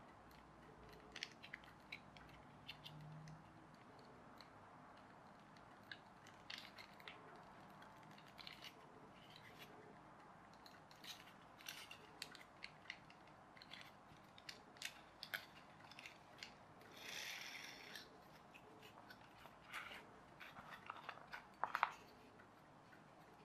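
Faint small clicks and snaps of a pullback toy car kit being taken apart by hand, its wheels and small connector pieces pulled free. A short noisy burst lasting about a second comes about two thirds of the way through, and a tighter, louder cluster of clicks near the end.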